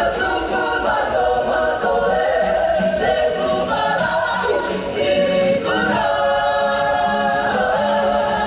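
Group of voices singing together in harmony, holding long notes that change pitch together, over a steady low note.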